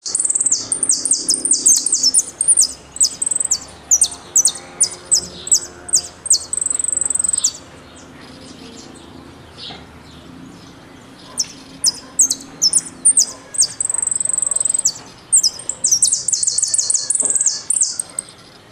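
Argentine jilguero (saffron finch) singing its competition-style song of sharp struck notes and short whistles ('golpe y pitadas'): quick runs of high notes, breaking off for about three seconds in the middle before starting again.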